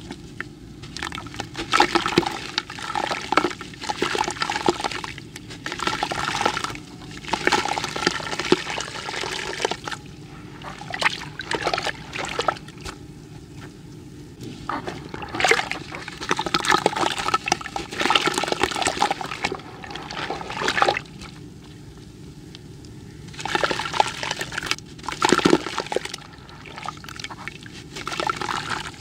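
A crumbly grey chunk being dipped into water in a metal bucket and crushed by hand: splashing and sloshing mixed with crisp crunching and crumbling. It comes in several spells of a few seconds each, with short pauses between them.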